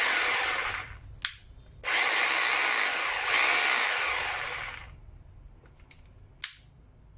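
Hangbo 920W corded rotary hammer drill run with no load in hammer mode, twice: a run that dies away about a second in, then a burst of about three seconds that winds down. A few light clicks of handling follow near the end.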